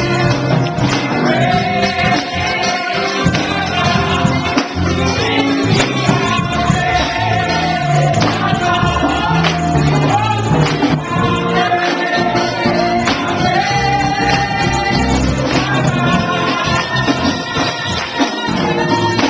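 Live gospel-style worship singing by a group of voices, with tambourine and band accompaniment, recorded by a small camcorder's built-in microphone.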